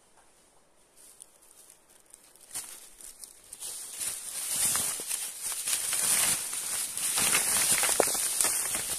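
Footsteps crunching and scraping on loose rock. They start faint a couple of seconds in and grow louder, a dense run of small crunches and clicks.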